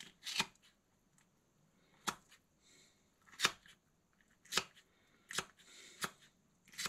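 Sharp cutting strokes on a white seabream being trimmed and cleaned for cooking: seven crisp cuts at irregular intervals of roughly a second.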